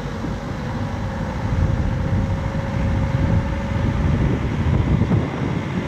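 A motor vehicle running steadily: a loud low rumble with a faint steady whine above it. It cuts off abruptly at the end.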